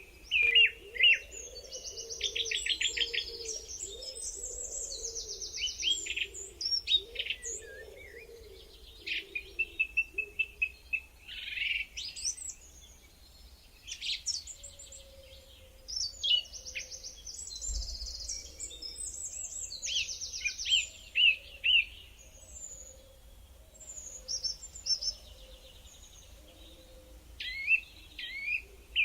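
Several birds singing and calling at once: overlapping rapid trills, chirps and whistled phrases from more than one species.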